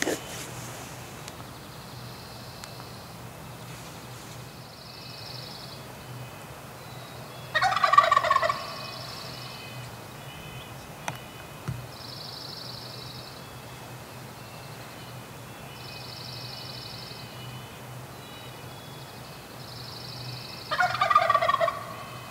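Wild turkey gobbler gobbling twice, about thirteen seconds apart, each gobble a loud rattling burst of about a second. Between the gobbles a faint high trill repeats every few seconds.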